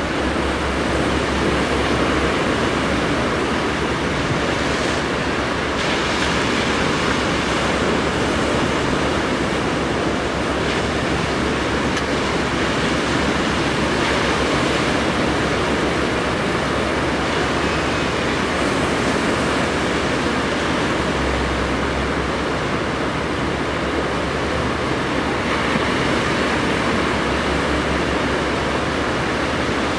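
Hitachi excavator with a side-clamp vibratory pile driver running steadily, a dense mechanical rumble, as it sinks a wooden breakwater pile into the seabed. Surf washes around the machine, and a low hum swells for a few seconds near the start, past the middle and near the end.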